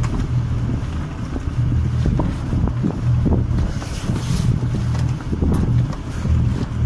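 Wind buffeting the microphone on the deck of a gaff-rigged sailing boat as the mainsail is lowered, a steady low rumble with short knocks and rustles of canvas and rope throughout.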